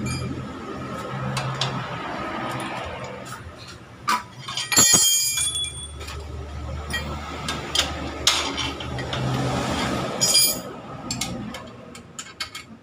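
Metal clinks and rattles of tools and engine parts being handled and fitted during motorcycle engine reassembly. There is a louder clattering cluster about five seconds in and another just after ten seconds.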